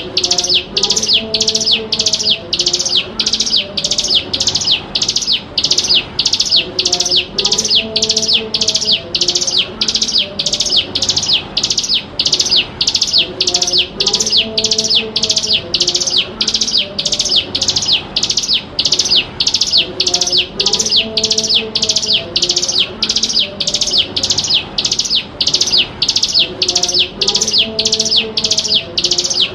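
Ciblek gunung (a prinia) calling in a fast, unbroken series of sharp, high chirps, each a quick falling note, about two a second.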